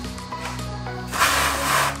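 Background music, and about a second in a hand wire brush scrubs rust and loose paint off the steel underside of a Suzuki Jimny JA11 in one harsh scraping stroke.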